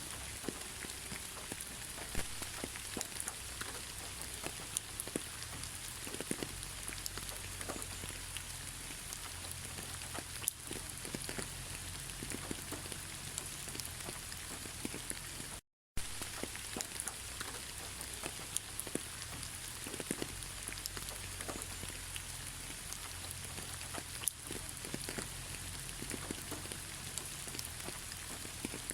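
Steady rain, with many separate drops pattering and ticking on a surface. The sound cuts out completely for a split second about halfway through.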